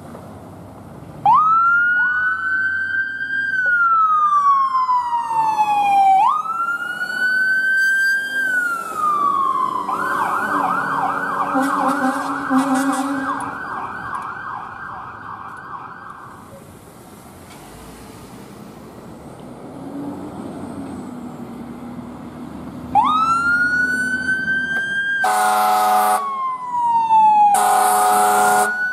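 Fire department emergency vehicles passing with sirens sounding: long wails that rise quickly and fall slowly, then a fast yelp, then another wail. Near the end two loud blasts of the fire engine's air horn sound over the wail.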